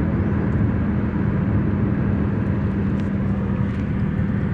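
Steady road and engine noise of a car driving on a highway, heard from inside the cabin, with a constant low drone.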